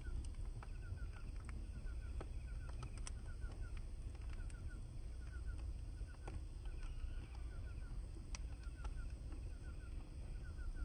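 Outdoor ambience with a bird calling in short runs of four or five quick notes, repeated about every second, over a steady low rumble and scattered faint clicks.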